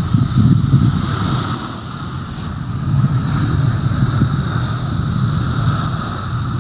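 Airbus A320 airliner's jet engines running with a steady rumble and a thin whine as the jet rolls along the runway on its landing roll-out.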